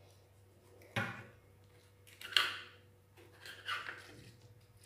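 A knife sawing through the crust of a freshly baked loaf of khobz dar in a metal baking tray, giving three short crunchy scrapes.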